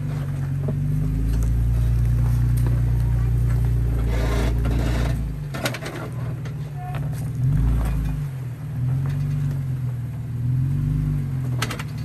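Jeep Wrangler Rubicon engine running at low speed under load while crawling over rock, its revs rising and falling again and again in the second half. A few short scrapes and knocks come through about four to six seconds in and again near the end.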